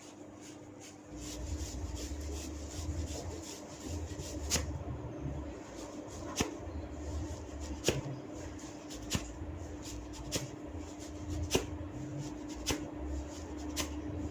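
Hair cracking during a head massage: tufts of hair tugged one after another, each giving a sharp crack, about one a second, over the rubbing of hands on hair and scalp that begins about a second in.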